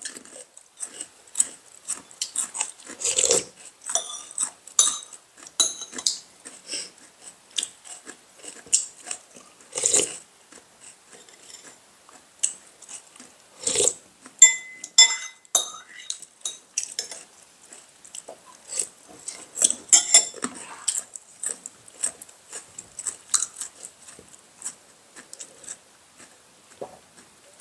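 Spoons clinking and scraping against ceramic bowls while eating, in scattered sharp clicks, with a few short ringing clinks about halfway through.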